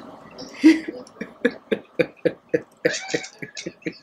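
A woman laughing: a short burst under a second in, then a long run of quick pitched 'ha' pulses, about four a second.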